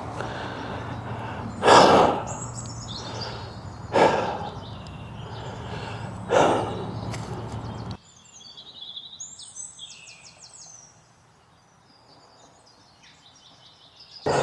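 Outdoor ambience with three loud, heavy breathy exhales about two seconds apart. After an abrupt cut, quieter ambience with birds chirping.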